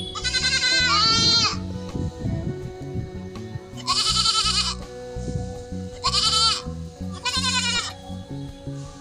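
Goats bleating: five separate wavering bleats, two together at the start, then one about four seconds in and two more near six and seven and a half seconds, over steady background music.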